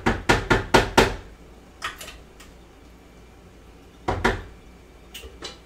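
Wooden spatula knocking and scraping against the sides of a square nonstick pan while stirring a chunky chickpea and vegetable mix: a quick run of about five knocks in the first second, a few more around two seconds, and another cluster about four to five seconds in.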